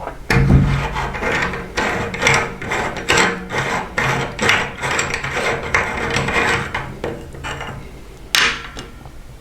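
Electric meat grinder switching on and running with a steady hum, crunching and grinding the food fed into it in irregular crackling bursts. A single sharp scraping noise comes near the end.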